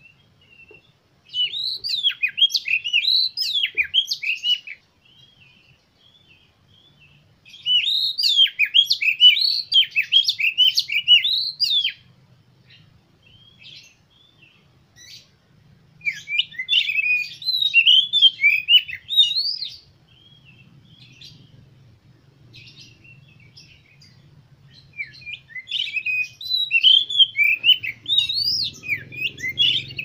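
Oriental magpie-robin singing: four bouts of fast, varied whistled phrases, each a few seconds long, with soft scattered notes in the gaps between them.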